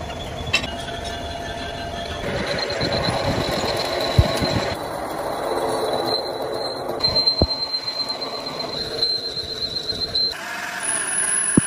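Metal lathe turning a forged steel axle spindle, the cutting tool on the spinning workpiece giving a steady high-pitched squeal over the running machine for most of the stretch, with a few sharp clicks.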